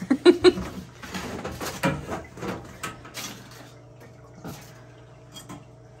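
Handling noise as the hoses are pulled out from behind a portable dishwasher: three quick knocks just after the start, then rustling and scraping, over a steady low hum.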